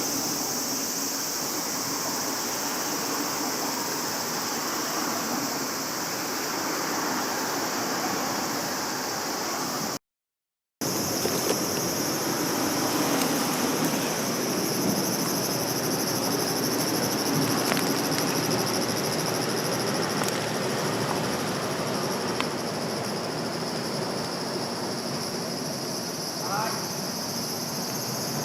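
Steady outdoor chorus of insects chirring in a continuous high pitch, which cuts out briefly about a third of the way in. A short rising squeak comes near the end.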